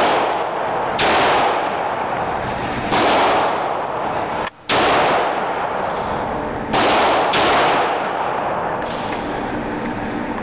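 Semi-automatic pistol shots in an indoor shooting range: about six loud shots at uneven intervals of one to two seconds, each ringing out in a long echo off the range walls.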